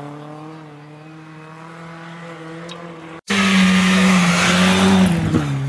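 A Saab 99 rally car's engine fading as it drives away, then a louder Opel Kadett rally car's engine coming close and passing, its pitch dropping sharply near the end as it goes by.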